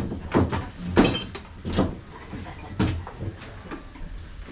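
A run of sharp knocks and thumps, about half a dozen in the first three seconds, then quieter.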